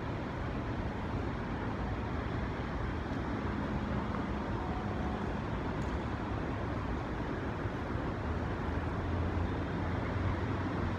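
Steady city street ambience dominated by traffic rumble, growing slightly louder in the second half.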